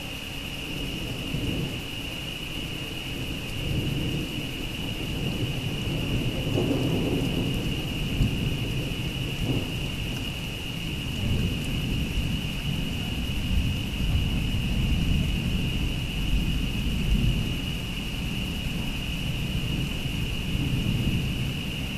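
Thunder rumbling in long rolls that swell and fade, with rain falling throughout. A steady high-pitched tone runs underneath.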